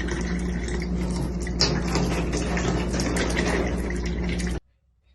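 Running, splashing water with many small drips and a steady low hum underneath; it cuts off abruptly about four and a half seconds in.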